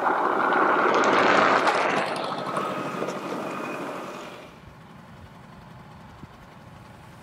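Vespa 125 ET3 scooter's small two-stroke engine passing close by, loudest in the first two seconds and fading as it rides away. The sound drops sharply to a quiet background about four and a half seconds in.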